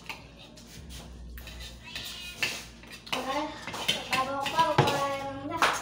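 Spoons clinking and scraping on plates during a meal, with people's voices talking over it in the second half.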